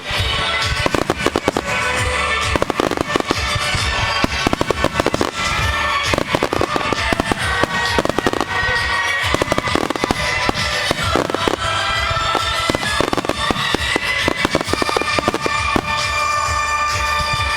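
A fireworks display with rapid, continuous bursts and crackling shells going off one after another, over music accompanying the show.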